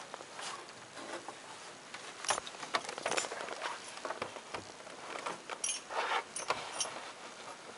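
A person clambering through tight attic rafters: irregular knocks, scrapes and rustles from body and hands moving over the wooden framing.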